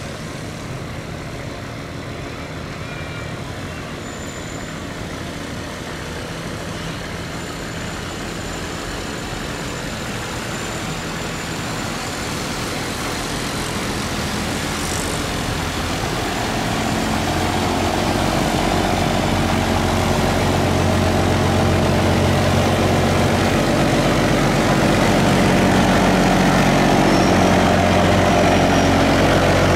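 A boat engine running steadily and growing louder as it draws near, its low hum strengthening through the second half.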